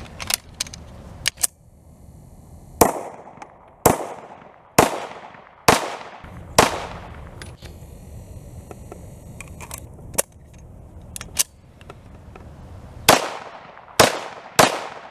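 Ruger American Pistol in 9mm firing a string of shots with echoing tails: five shots about a second apart, a pause with two lighter reports, then a quicker run of shots near the end.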